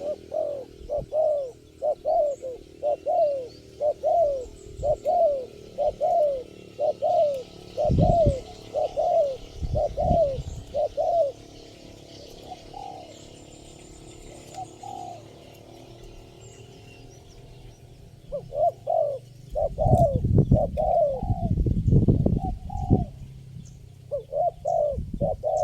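Spotted doves cooing: a rapid run of short arched coos, about two a second, for the first eleven seconds, then after a lull more coos near the end over heavy low rumbles.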